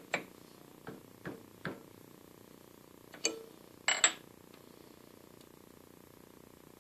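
Metal clinks and knocks as a steel shaft and a bending tube are handled on a lathe bed, six short strikes in the first four seconds, the loudest two near the end of that run, over a faint steady hum.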